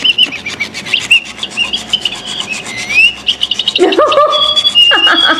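Motion-activated flapping-wings sparrow cat toy running on a wooden floor. Its electronic bird sound gives quick repeated chirps over the fast rubbing flutter of its flapping wings. About four seconds in, a few longer, lower calls follow.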